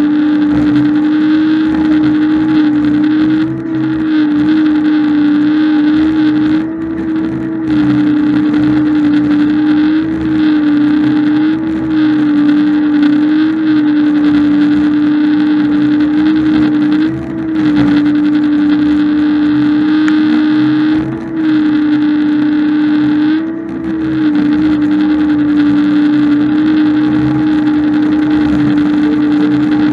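Loader engine running steadily under work, its pitch briefly rising and its level dipping every few seconds as the load changes.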